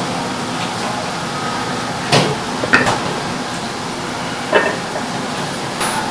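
Concrete blocks being set down one on another as weights on a wooden tofu press. They knock together in four short clacks: two close together about two seconds in, one near the middle and one near the end. A steady hiss of background noise runs underneath.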